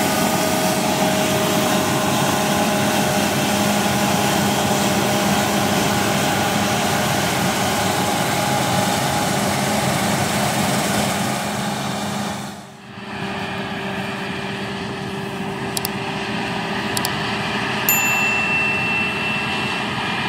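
Claas Lexion combine harvester running steadily, with a brief drop in the sound about two-thirds of the way through before it carries on.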